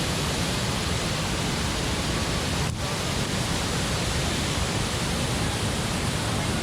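Waterfall on the Willow River: a steady rush of falling water, dipping briefly about three seconds in.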